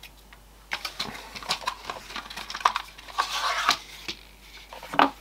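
Small cardboard box being opened by hand, its flaps and paper insert sliding and rustling, with a string of small taps and clicks, a longer rustle a little after three seconds and a sharper one near the end.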